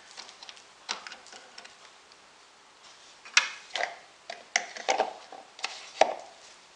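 Orange plastic funnel being handled and fitted into the radiator filler neck: a run of light clicks and knocks, sparse at first and coming thick and fast from about three seconds in.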